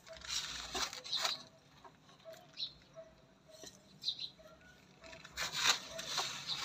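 Hands and a small trowel working potting soil into a pot around a transplanted rose: rustling and scraping in two bursts, one at the start and one about five seconds in. Faint short bird calls repeat in the background.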